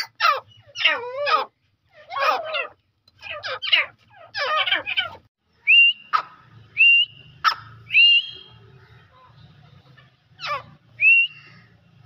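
Grey francolin calling: for about five seconds a quick run of loud, harsh notes that sweep down in pitch, then a few separate whistled notes that rise and level off, with a couple of sharp clicks among them.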